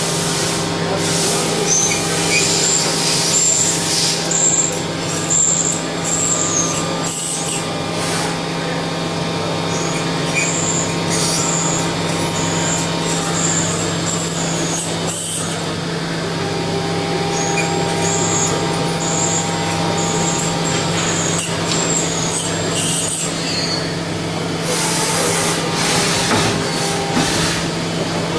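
Mazak VTC 300C CNC vertical machining center running a machining cycle: a steady hum with several constant tones, and high-pitched hissing that comes and goes throughout.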